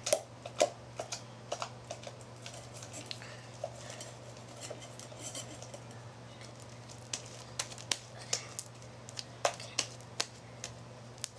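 Slime being kneaded in a stainless steel bowl and then stretched between the hands: irregular sticky clicks and pops, with the odd knock against the metal bowl. The slime is still sticky, not yet fully activated.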